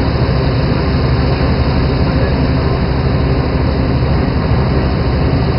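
A fishing boat's engine running steadily: a loud, even drone with a constant low hum and a rushing hiss over it.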